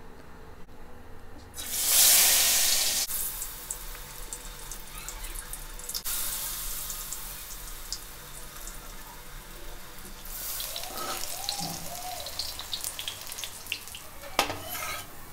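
Besan-battered jackfruit pieces deep-frying in hot oil in a kadhai: a loud sizzling surge as a piece goes in, then a steady hiss with small crackles, rising again about ten seconds in. A few sharp metal clatters near the end.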